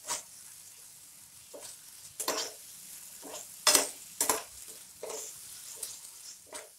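A spatula stirring and scraping a wet onion-and-ketchup masala around a non-stick pan in a string of uneven strokes, over a faint steady sizzle.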